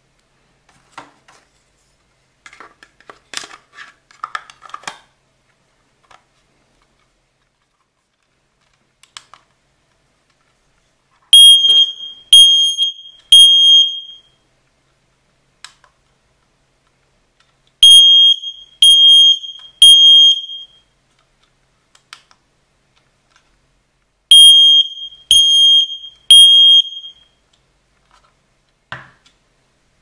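X-Sense wireless smoke alarm sounding its test alarm: loud, high beeps in three groups of three with pauses between, the temporal-three fire evacuation pattern. Before the beeps come a few scattered clicks and rattles of the plastic unit being handled, and a short thump near the end.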